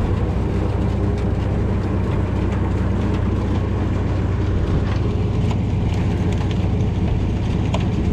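Tractor engine running steadily while it drives a manure spreader through the PTO shaft, with scattered clanks and rattles from the spreader's moving chain, running empty.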